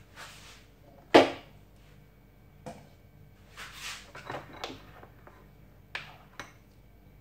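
A wooden spatula and a metal spoon scraping thick barley porridge out of a cooking pot into a bowl: one sharp knock against the pot about a second in, then a few softer scrapes and knocks.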